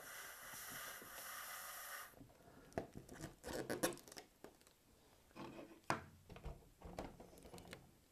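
Helium hissing steadily from the tank nozzle into the blimp balloon, cutting off suddenly about two seconds in. Scattered light clicks and rustles of handling follow.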